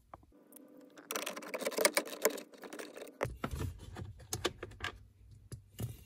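Rapid small clicks and light metallic rattles of a socket and loose bolts being handled during dashboard disassembly, with a few sharper knocks in the second half.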